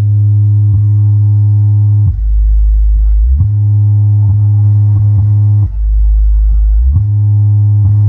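21-inch subwoofer sound system playing a loud bass test tone that alternates between two low notes. A higher bass note runs for about two seconds at a time, broken twice by a deeper note lasting just over a second.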